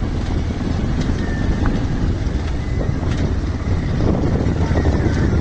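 Motorcycle ridden along a rough, unpaved road under construction: a steady rumble of engine and road with wind on the microphone.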